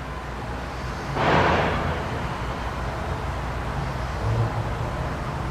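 Steady low background rumble, with one short breathy rush of noise about a second in.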